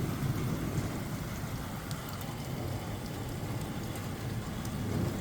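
Rain falling steadily, an even hiss and patter with a few light drop ticks.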